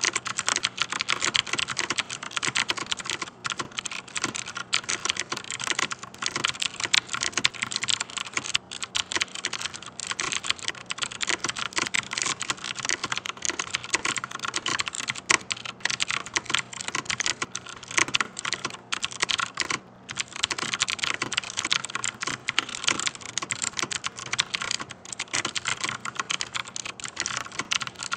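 Fast, continuous typing on a Rosewill RK-9000 mechanical keyboard with Cherry MX Blue switches: a dense stream of sharp, high clicks from the clicky switches, broken by a few short pauses.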